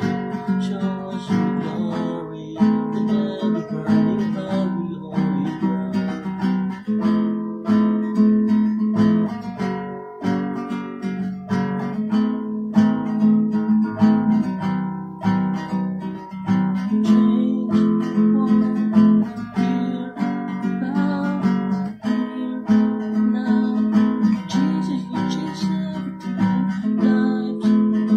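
Acoustic guitar strummed in a steady chord accompaniment, with a man singing over it at times.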